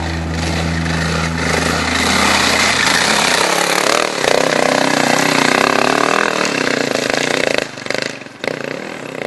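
Dirt bike engine revving hard under load as the bike climbs a steep dirt hill, its pitch rising and falling with the throttle. It drops away about three-quarters of the way through as the bike tops the crest.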